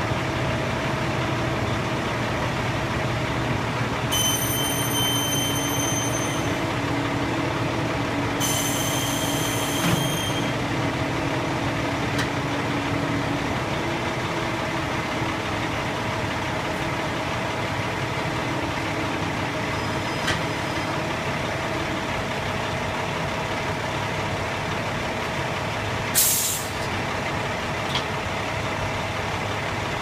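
McNeilus concrete mixer truck's diesel engine running steadily while the drum turns. Two long high beeps sound a few seconds in, and a short burst of air hiss comes near the end.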